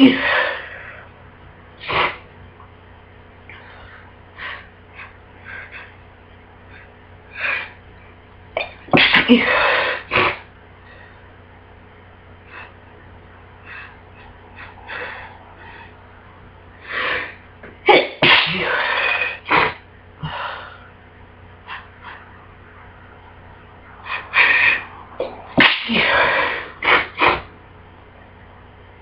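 A person with a bad cold sneezing again and again. The loudest sneezes come in three bouts, about nine, eighteen and twenty-five seconds in, with smaller bursts between them.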